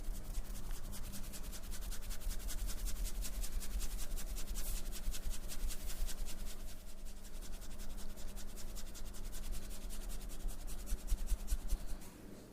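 Hands massaging a person's head: fast, even scratching and rubbing strokes, several a second, that stop near the end.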